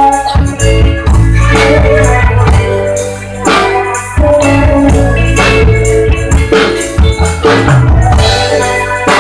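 Instrumental music with a drum beat and held melodic notes, without singing: an instrumental passage between sung lines.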